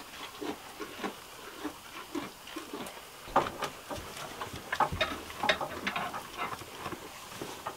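Goat feeding on hay: dry hay rustling and crackling as it is pulled and chewed, with irregular light knocks that grow busier about three seconds in.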